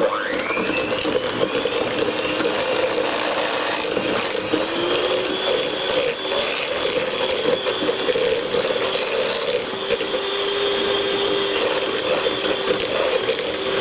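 Electric hand mixer switched on, its whine rising as the motor spins up, then running steadily as its beaters cream margarine, sugar and eggs into cake batter. Its pitch rises slightly about four seconds in.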